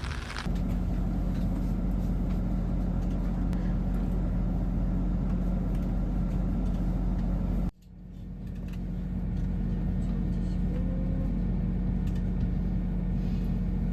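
Steady low mechanical hum with a droning tone. It cuts off abruptly about eight seconds in and builds back up to the same level over a second or two.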